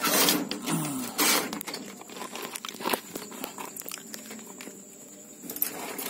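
Handling noise at a wire-mesh bird cage: rustling and scattered clicks, loudest in the first second and a half, then thinning out to lighter ticks.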